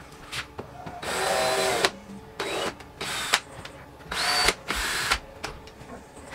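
Cordless drill running in four or five short bursts on a wooden board, each lasting half a second to about a second, its motor whine rising in pitch as it spins up.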